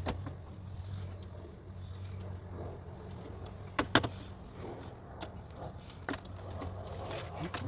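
Hands and tools disconnecting parts in a car's engine bay, making a few sharp metallic clicks and clinks. The loudest is a double click about four seconds in. A steady low hum runs underneath.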